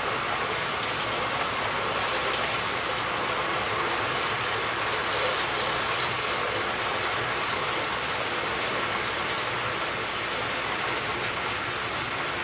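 Märklin model train running on the layout track: an even mechanical running noise with a thin steady whine from the locomotive.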